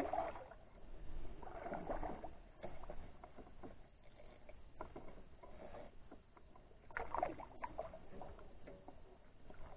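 Faint water swishes and small knocks around a canoe, with a soft swish about two seconds in and another near seven seconds, and scattered light ticks between.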